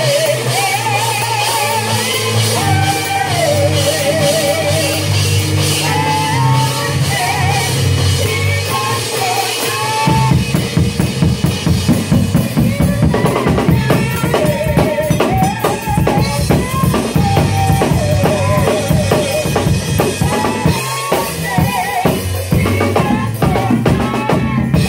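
Drum kit played along with a gospel song: a singer's voice with vibrato over a bass line, with the drums keeping time. About ten seconds in, the drumming picks up, denser and louder, with heavy bass drum.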